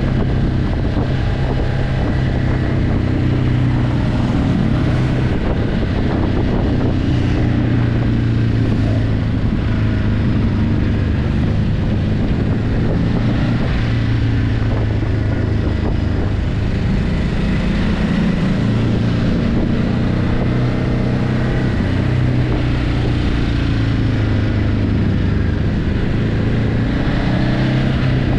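Ducati Hypermotard 950's L-twin engine through its stock exhaust while riding, holding a mostly steady note with the revs rising and falling a few times, mainly in the second half. Wind rushes over the microphone.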